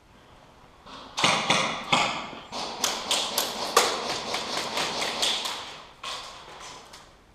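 A rapid, irregular series of sharp taps and knocks, about three to five a second, lasting about five and a half seconds.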